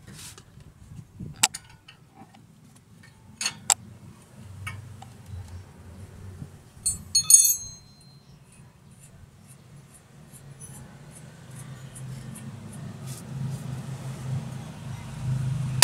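Sparse sharp metallic clinks and taps, like hand tools knocking against metal, over a faint low hum that grows louder near the end.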